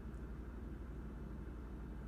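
Steady low hum with faint hiss, unchanging throughout: background noise with no distinct event.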